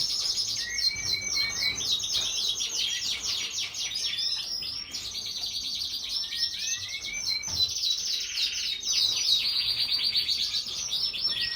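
Canary singing a long, unbroken song of rapid trills and repeated notes, switching to a new phrase every second or so.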